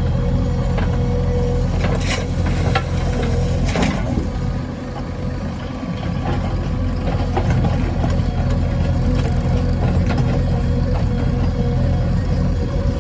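JCB 3DX backhoe loader's diesel engine running steadily under work, with a thin whine that comes and goes and a few sharp metal knocks in the first four seconds.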